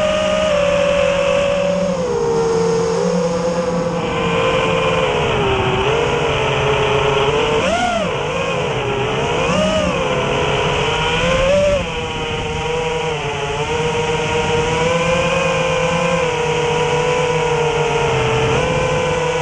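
Five-inch FPV quadcopter's brushless motors (2307, 2400 kV) and propellers whining loudly, heard from the GoPro on the frame. The pitch holds fairly steady, then rises and falls with the throttle, with quick sharp punches about 8 and 10 seconds in.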